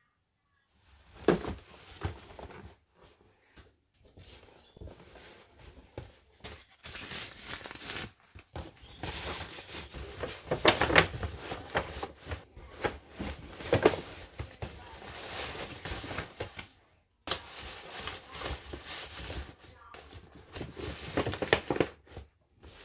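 Paper shopping bags rustling and crinkling as folded clothes and hats are pressed and packed into them, with irregular sharp crackles and light knocks of handling.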